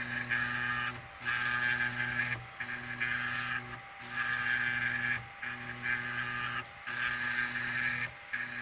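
Stepper motors of a home-built, Arduino-driven belt-drive laser engraver whining through back-and-forth raster passes. Each pass runs about a second and a half, with a brief pause at each reversal, about six times over.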